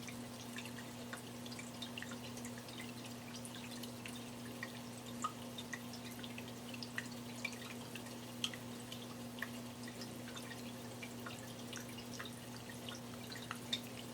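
Tabletop stone water fountain running: water trickling and dripping in many small irregular drops, over a steady low hum.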